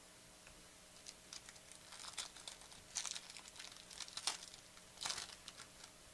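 A foil trading-card pack wrapper being torn open and crinkled by hand: quiet, irregular crackling with a few louder crinkles.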